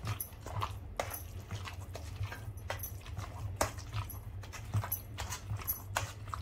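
A potato masher pressing and knocking against an aluminium pan, mashing soft cooked vegetables for pav bhaji: repeated short knocks, roughly three a second, with a soft squelch of the mash, over a low steady hum.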